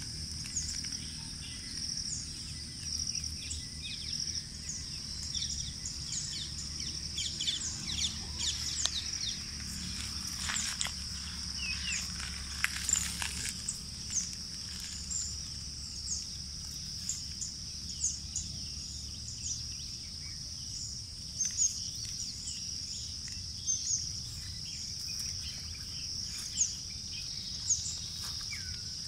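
A steady high-pitched insect drone runs throughout, with many short bird chirps scattered over it. There are occasional light scuffs on gravel, loudest about a third of the way in, as kittens wrestle.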